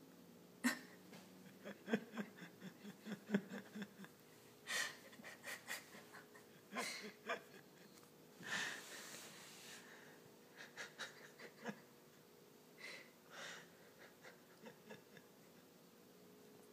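Small dog snorting, huffing and making wet mouth clicks while play-mouthing on its back, in short breathy snuffles. A quick run of little clicks and snuffles comes in the first few seconds, and a longer breathy snort about eight seconds in.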